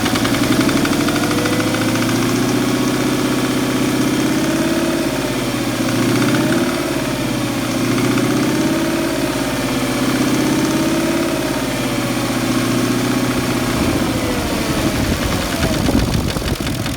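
Porsche Cayenne engine running at idle, a steady hum whose pitch wavers gently up and down every few seconds.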